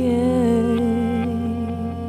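Live band music: a woman's voice holds a long, wavering sung note over sustained keyboard chords, easing off near the end.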